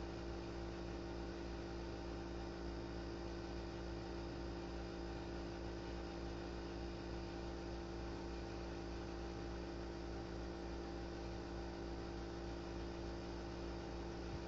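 Steady hum of several constant tones over a faint hiss, unchanging throughout.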